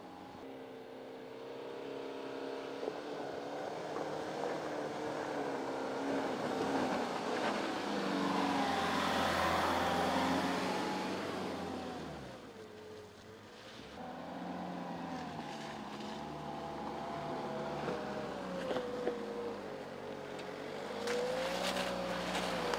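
Land Rover Freelander 2 driving slowly over a rough dirt track, its engine note rising and falling with tyre noise on the dirt. It quietens briefly about halfway through, and a few sharp clicks come near the end.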